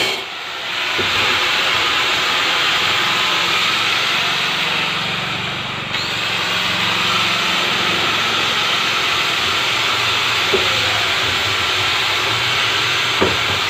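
Handheld angle grinder running steadily as it cuts around the top of a blue 250-litre plastic barrel, its sound dipping briefly about six seconds in.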